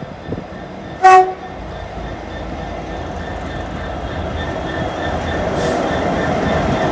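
Class 66 diesel-electric freight locomotive, with its EMD two-stroke V12 engine, gives one short horn blast about a second in, then its engine and the wagons grow steadily louder as it passes hauling a container train.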